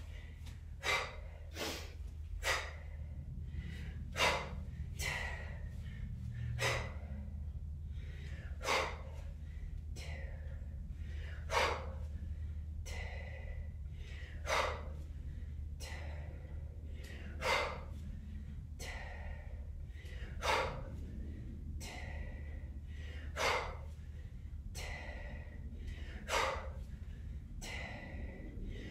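A woman's sharp, forceful exhalations during kettlebell snatches, one about every second and a half, with a louder one about every three seconds.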